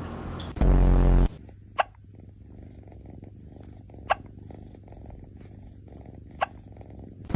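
A cat burping once, a loud, low, half-second belch about a second in. A steady low purring sits under it, and three short high chirps come at even intervals.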